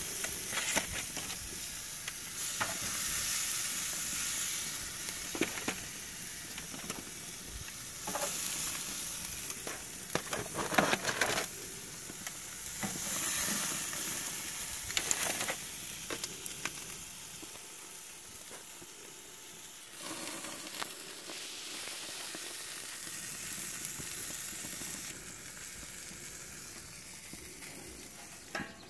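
Sausages and a pork roast in its juices sizzling on a propane gas grill, a steady high hiss. Metal tongs click and scrape on the grate now and then as the sausages are turned, most around the middle.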